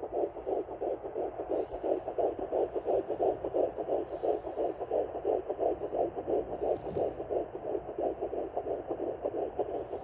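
Fetal heartbeat at 10 weeks heard through a Sonoline B handheld fetal Doppler's speaker: a fast, steady, even pulsing at around 150 to 160 beats a minute, far faster than the mother's own heartbeat.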